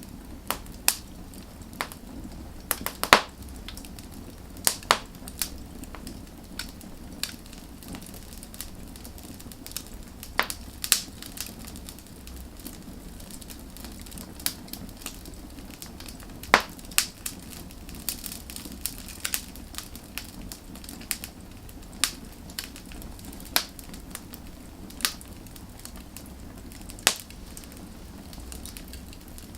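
Wood fire burning, with a low steady hiss and rumble and irregular sharp crackles and pops as the logs burn, the loudest pops about three seconds in and just past halfway.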